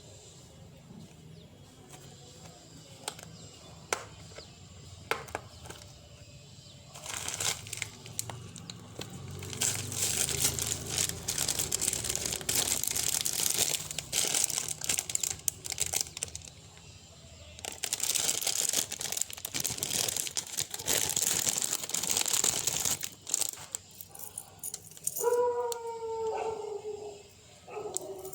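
Plastic parcel packaging being crinkled and torn open by hand in two long stretches of crackling. Near the end a dog makes a few short calls.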